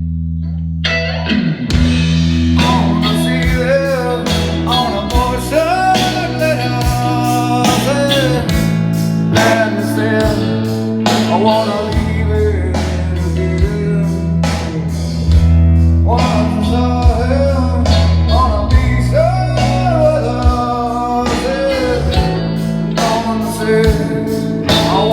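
Blues-rock song with singing, guitar and a heavy bass line, played back through Dayton Audio T65 tower speakers and a CS1200 subwoofer. The singing comes in about a second and a half in.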